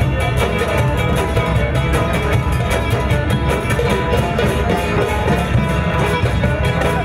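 Live Romani-style band music: a plucked string instrument played in quick notes over a steady hand-percussion beat.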